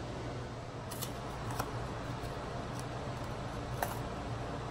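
A few light clicks and taps from containers being handled on a kitchen counter, over a steady low hum.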